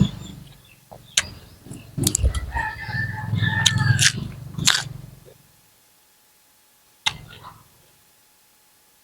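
A rooster crows once, a call of about two seconds that falls slightly at the end, among a few sharp clicks close by.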